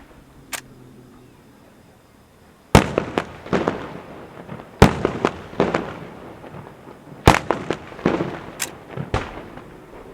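Maltese festa fireworks going off: one sharp crack, then from about three seconds in a rapid run of loud bangs with crackling between them. The heaviest blasts come near three, five and seven seconds, and the run thins out near the end.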